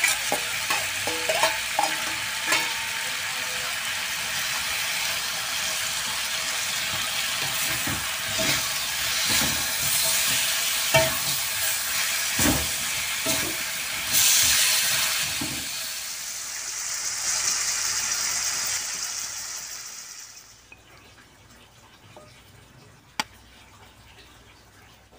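Oil sizzling in a wok as tempeh, chilli sambal and lemon basil are stir-fried, with the metal spatula scraping and knocking against the pan. About three-quarters of the way through the sizzle dies away, leaving low room noise and one sharp click near the end.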